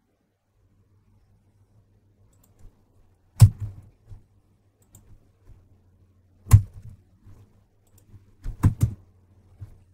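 A few separate sharp clicks of computer keys and mouse buttons while code is edited: single clicks about three and a half and six and a half seconds in, then three in quick succession near the end, over a faint steady low hum.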